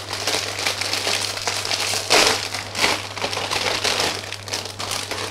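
Plastic polybag crinkling and rustling as plastic model kit runners are handled, loudest about two seconds in, over a low steady hum.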